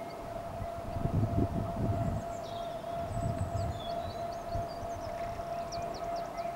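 Class 70 diesel freight locomotive approaching with a train of ballast wagons: a steady high-pitched whine over a low engine rumble that swells about a second in. Small birds chirp over it.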